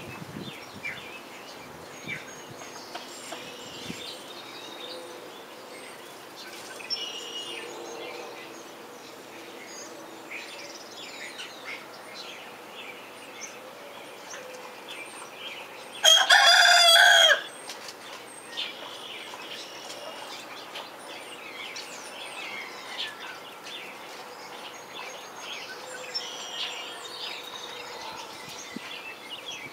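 A juvenile rooster, just beginning to crow, gives one short, loud crow about halfway through. Faint hen clucking and small-bird chirps go on around it.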